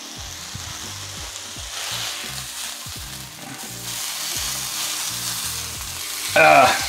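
Chicken sizzling in a hot ridged grill pan while the pieces are lifted out with a fork, with light clicks of the fork on the pan. Soft background music runs underneath, and a brief loud vocal sound comes near the end.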